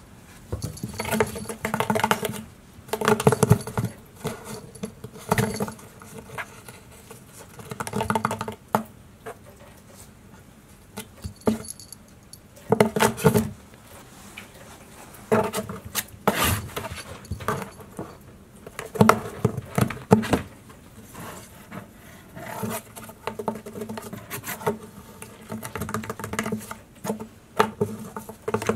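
Cats scrabbling and scratching at the inside of a cardboard box, batting at a toy poked through a hole. The sounds come in irregular bursts a second or two long, with a few sharp knocks against the cardboard.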